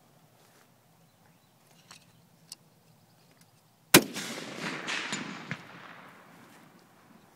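A single shot from a Remington R25 .308 semi-automatic rifle about four seconds in, sharp and loud, followed by a long rolling echo that dies away over about three seconds.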